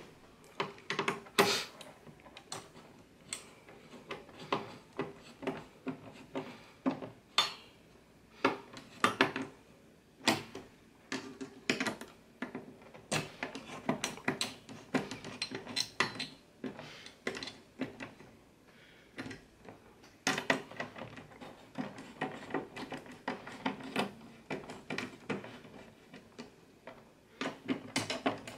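Irregular clicks, taps and light clatter of a screwdriver and fingers on an AMD Wraith Stealth CPU cooler and the motherboard as the cooler is unscrewed and lifted off.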